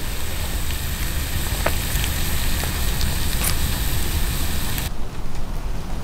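Sliced sausages sizzling in a frying pan on a small camping stove, with a few sharp pops. The sizzle cuts off abruptly about five seconds in, leaving a low rumble.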